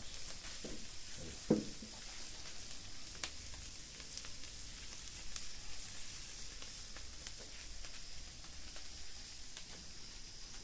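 Open firewood fire burning with a steady hiss and scattered sharp crackles and pops. A few soft knocks in the first two seconds, as logs and foil-wrapped parcels are shifted in the fire.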